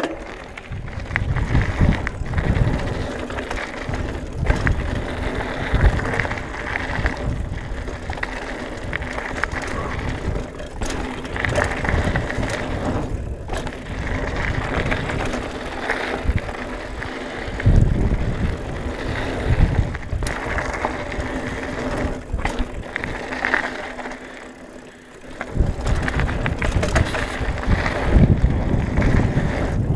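Trek Marlin 6 hardtail mountain bike riding fast down a loose gravel trail: tyres rolling over gravel with the bike rattling, and wind buffeting the camera microphone. The noise dips for about a second near the end, then picks up again.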